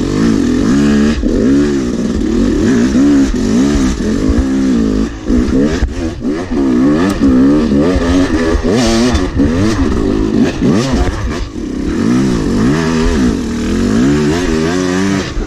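Two-stroke dirt bike engine, a Yamaha YZ250, revving up and down over and over in short throttle bursts as it is worked through a steep rut.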